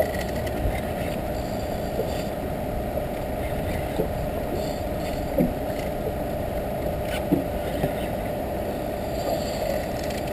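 Boat motor running steadily: a constant hum over a low rumble, with a few faint knocks.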